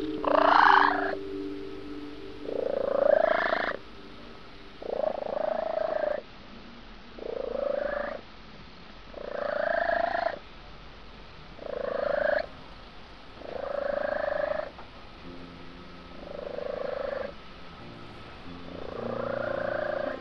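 Kitten meowing over and over, about one meow every two seconds, each meow about a second long and rising then falling in pitch.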